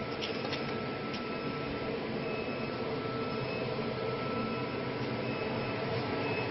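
Woodmaster four-axis, four-tool CNC wood lathe running while it machines a wooden leg: an even machine hum with a faint high whine, and a few light ticks in the first second.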